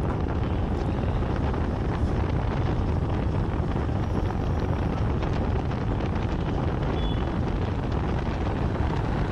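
Steady rush of wind on the microphone over the low rumble of a moving vehicle travelling along a road.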